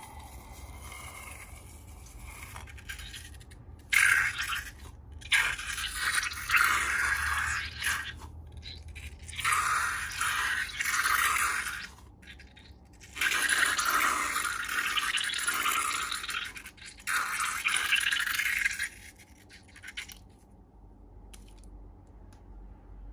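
Slime-making handling sounds: a run of scratchy, hissing bursts, each one to several seconds long, starting about four seconds in and dying away near the end.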